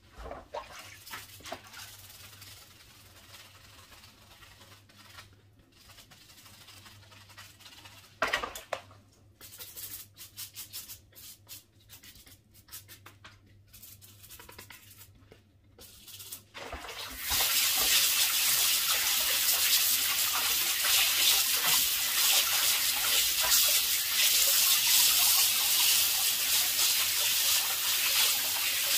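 A brush scrubbing a wet computer motherboard in a basin of soapy water, in quick repeated strokes. Then, a little past halfway, a loud steady rush of water begins as the board is rinsed.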